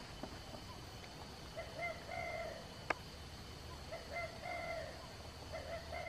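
Spotted dove cooing: a short note followed by a longer one, the phrase given twice about two and a half seconds apart. A single sharp click falls about three seconds in.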